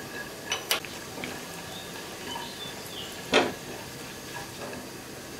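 Cashews and almonds frying in hot ghee and oil with a steady sizzle, while a silicone spatula stirs them and scrapes against the non-stick pan a few times, the loudest scrape a little past the middle.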